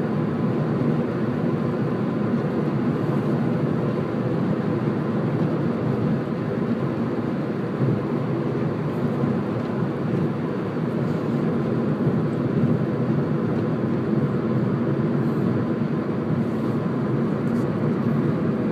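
Steady road and engine noise of a car, heard inside its cabin, an even rumble with no change throughout.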